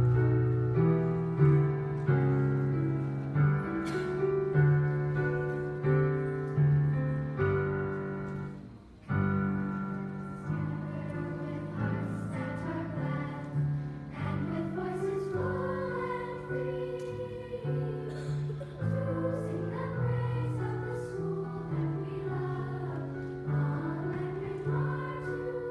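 Piano playing chords; about halfway through, a choir of young girls' voices joins in singing with the piano.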